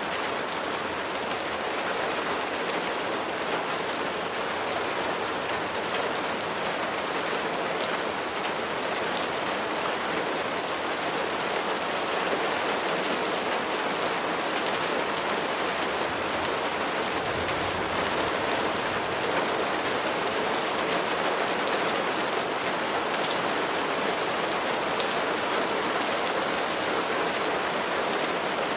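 Steady rain falling, with many individual drops ticking sharply through an even hiss.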